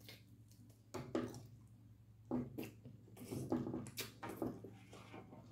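Close-up mouth sounds of eating saucy barbecue chicken: irregular wet chewing and lip-smacking, coming in short clusters from about a second in.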